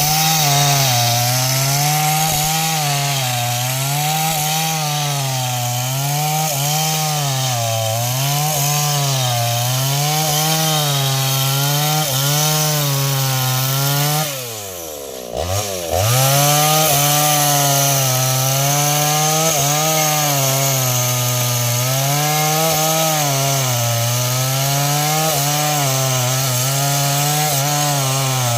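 Stihl MS 381 two-stroke chainsaw cutting wood under load, its engine pitch rising and sagging every second or so as the chain bites. About halfway through the revs drop sharply for about a second, then climb back and the cut goes on.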